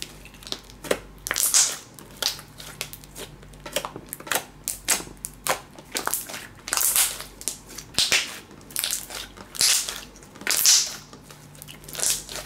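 Large slime being squeezed and kneaded by hand: irregular wet crackles and squelches, several a second, with a few louder clusters of pops.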